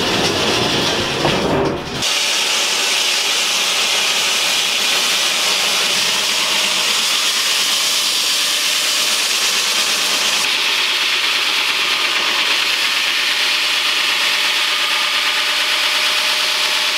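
Pentruder wall saw running its large diamond blade through the vault's concrete and steel, a steady loud grinding hiss that sets in abruptly about two seconds in after a short stretch of lower-pitched noise.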